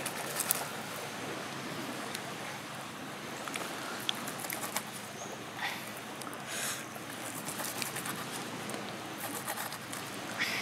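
A knife cutting and scraping through charred, grilled sea cucumber on a driftwood log: scattered small scrapes and clicks over steady surf noise.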